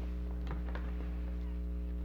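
A steady low electrical hum with a few light clicks and taps of small parts being handled, about half a second in and again shortly after.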